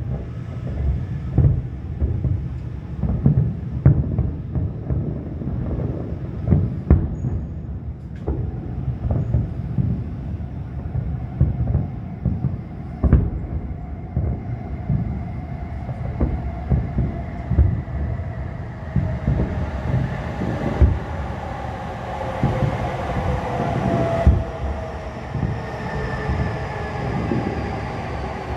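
Fireworks finale barrage: a dense run of overlapping booms and bangs over a continuous low rumble. In the last third, long whistling tones that glide slightly in pitch join the bursts.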